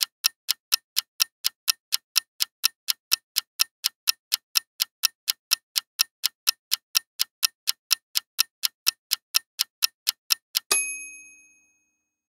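Quiz countdown timer sound effect: a clock ticking evenly about four times a second. Near the end a single bell ding rings out and fades over about a second, marking time up before the answer.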